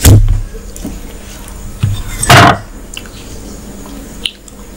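Close-miked eating and dish-handling sounds on a wooden table: a loud thud at the start, a small knock and then a loud clatter a little over two seconds in, and a click near the end, as a glass curry bowl is handled and lifted.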